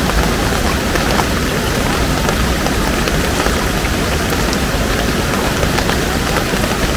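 River swollen by heavy rain, its floodwater rushing steadily, with scattered small ticks of falling rain.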